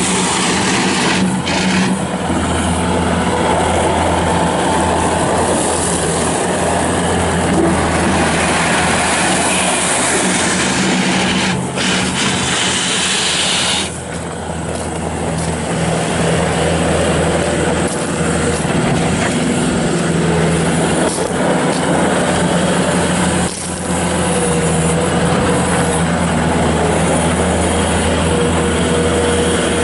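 2007 Bobcat S330 skid steer loader's diesel engine running steadily, with its sound dropping briefly a few times.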